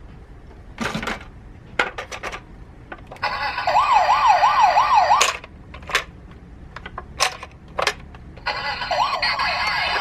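Toy emergency-vehicle minicar siren, an electronic wail rising and falling about three times a second, heard in two stretches: one about three seconds in and another starting near the end. Sharp clicks and knocks come before and between them.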